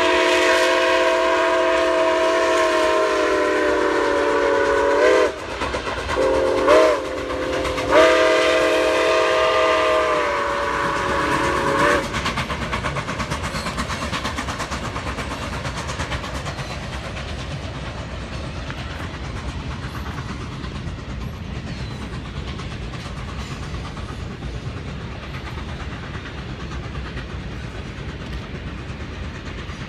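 Nickel Plate Road 765 steam locomotive's chime whistle, a chord of several tones blown as a long blast, two short blasts and a final blast of about four seconds that cuts off about 12 seconds in. After it, the train's wheels clatter over the rail joints as it rolls past, slowly fading.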